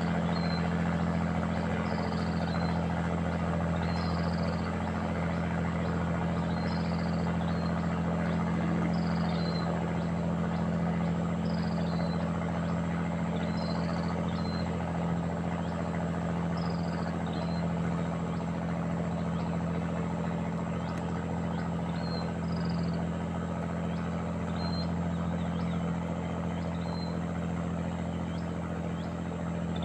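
A steady low motor drone, with a short high call repeating about every one and a half seconds.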